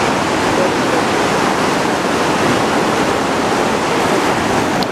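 Swollen, fast mountain river rushing and churning in white water below a footbridge: a loud, steady rush of water.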